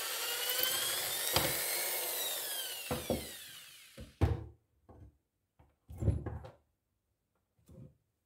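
Electric drill running as it turns a rod to wind wire into a coil, its pitch rising and then falling as it spins down and stops about four seconds in. Then come several knocks and clatters of the wire coil and hand tools being handled on a wooden bench.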